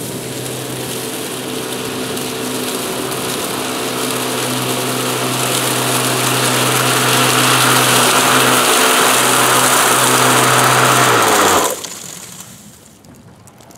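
PowerSmart 80V 26-inch twin-blade cordless electric lawn mower running as it cuts grass and dry leaves: a steady motor hum under the whir of the blades, getting louder as it comes close. About three-quarters of the way through it shuts off and the sound drops away within a second.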